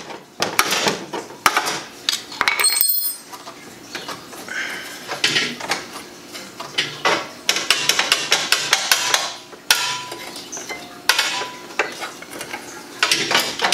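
Irregular clicking, clacking and scraping of plastic and metal car parts being handled by hand: clips and wiring connectors being worked loose from a BMW E36's radiator support.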